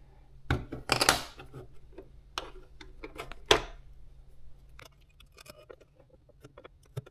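Small handling clicks and brief rustles as a thread spool and bobbin are changed on a sewing machine. The sharpest click comes about three and a half seconds in, and a low steady hum runs underneath.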